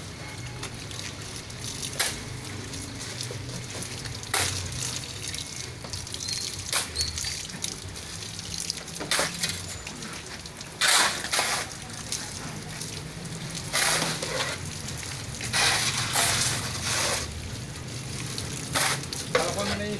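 Water from a garden hose splashing and trickling onto wet concrete, in short repeated splashes several seconds apart, over a steady low hum.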